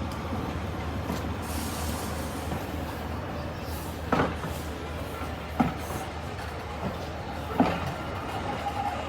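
Railway train moving slowly through the station platform: a steady low rumble with a few sharp clanks from the carriages.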